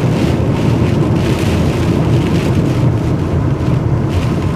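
Steady rumble inside a moving vehicle, with gusty rear-flank downdraft wind buffeting it and rain on the windshield. The windshield wipers are sweeping, and a brighter hiss swells about once a second.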